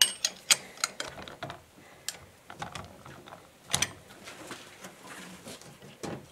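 Irregular metal clicks and clinks from a bearing puller clamped on a differential carrier bearing as the puller's side bolts are tightened to stop its legs spreading, with one louder click near the middle.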